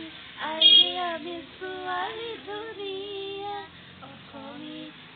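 A girl and a woman singing a song together without words being spoken, with several long held notes.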